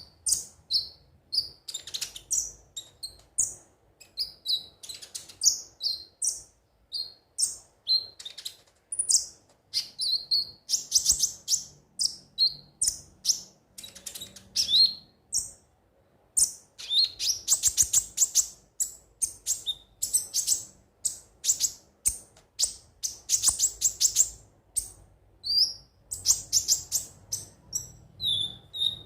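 Konin (kolibri ninja) sunbird singing: a steady stream of short, high, thin chirps and trills, breaking several times into dense runs of rapid notes.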